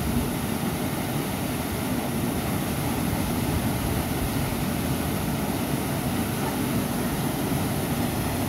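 Steady rush of a waterfall pouring into a rock pool, one even, unbroken wash of noise with a deep rumble underneath.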